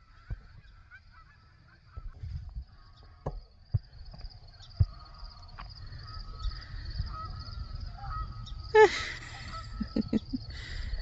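Canada geese honking in scattered calls, with a quick run of honks near the end and one loud burst about nine seconds in. Wind rumbles on the microphone throughout.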